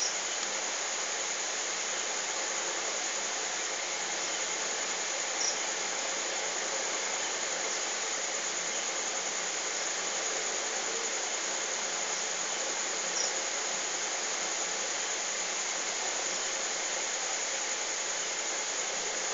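Steady, even hiss with no speech, and two brief faint squeaks about five and thirteen seconds in.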